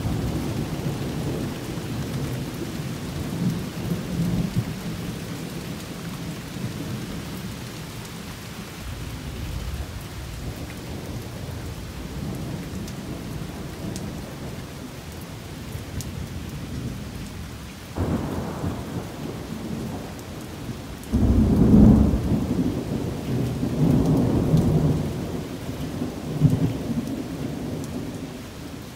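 Thunder rumbling again and again over steady rain. Two sudden loud claps come about two-thirds of the way through, the second the loudest, and roll on as a long low rumble for several seconds.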